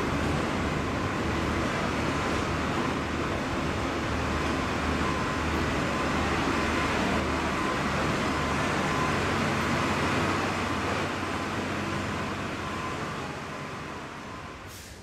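Truck engine running as a semi-trailer is driven onto a ferry's enclosed car deck: a steady low drone under broad noise, echoing in the steel hold, fading over the last few seconds.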